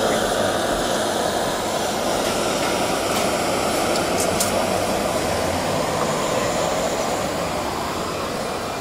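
Handheld butane gas torch burning steadily with its flame played onto a wire grilling basket, a loud even rush of noise. A few light clicks come around three to four seconds in.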